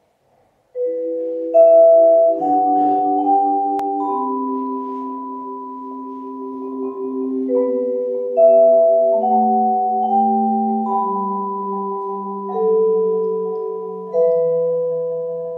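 Vibraphone and marimba playing a slow, quiet duet: long-ringing vibraphone notes stepping up one at a time over held low marimba notes, one of them pulsing in a fast even roll. The playing begins under a second in.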